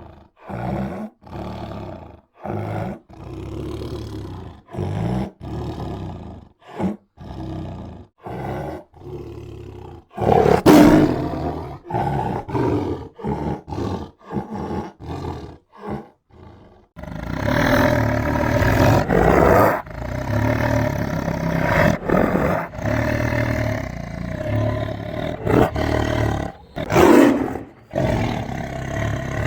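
Tiger growling and roaring. It starts as a run of short growls with brief gaps, about one a second, then turns to louder roars. From about halfway on it runs as a near-continuous growling roar, with one loud peak near the end.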